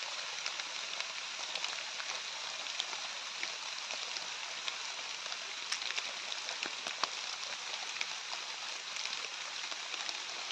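A steady hiss with scattered light ticks, a few of them sharper about six to seven seconds in.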